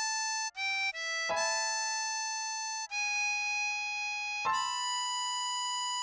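Tremolo harmonica playing a slow melody of single held notes: three short notes (A, G, E), then a long A, a bent A-flat from a draw bend on hole 14, and a long B held through the end.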